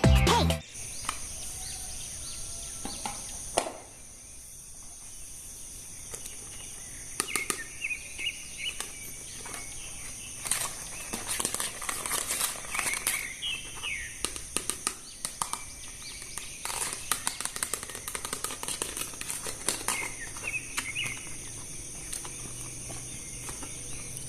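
Plastic packaging of a toy action figure being handled and opened: scattered rustling, crackling and clicks, densest in the middle of the stretch. A steady high-pitched drone runs underneath throughout.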